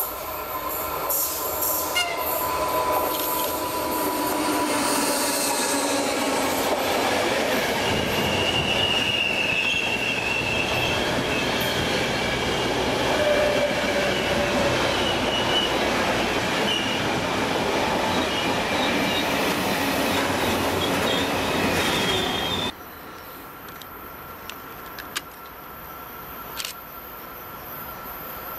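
A passenger train hauled by a ZSSK class 361 electric locomotive passes close by on a curve, with the coaches running past and the wheels squealing. About 23 seconds in, the sound cuts abruptly to a much quieter distant freight train with a few faint clicks.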